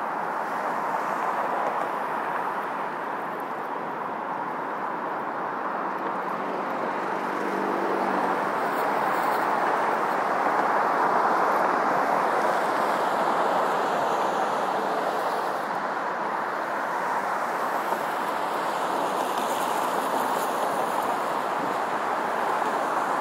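Steady road traffic: cars passing on the bridge roadway beside the walkway, a continuous hiss of tyres and engines that swells and fades gently.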